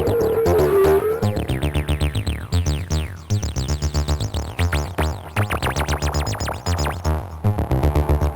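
Distorted TB-303-style acid synth line: rapid repeating bass notes with the resonant filter sweeping, run through the TB-303 Distortion Pro plugin.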